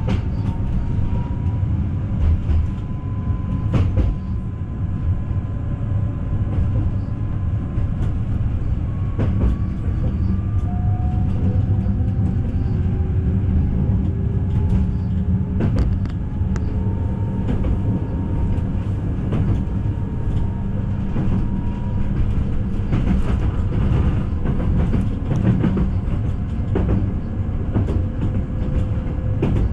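Newag Impuls 2 regional train heard from inside the carriage while running, with a steady low rumble. Faint slowly rising whines and occasional sharp clicks of the wheels over rail joints sound through the rumble.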